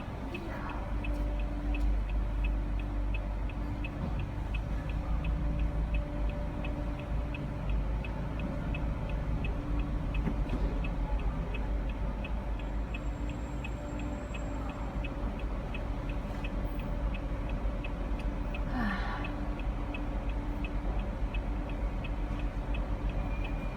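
A car's turn-signal indicator ticking steadily and evenly inside the cabin, over the low rumble of the car.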